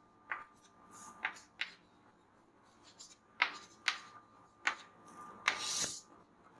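Chalk tapping and scratching on a chalkboard during handwriting: a string of short sharp taps, then a longer scrape near the end as a line is drawn under the writing.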